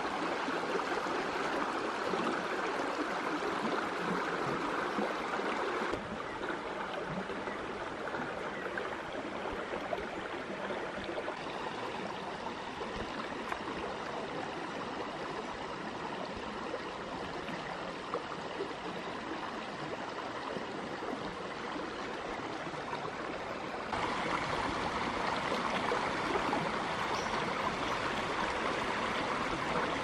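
Shallow stream flowing over rocks: a steady rush of running water. It drops abruptly to a quieter level about six seconds in and comes back louder about six seconds before the end.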